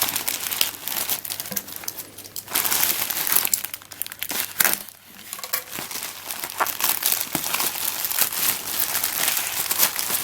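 A postal parcel being opened by hand: its packaging crinkling and crackling continuously, with two short lulls.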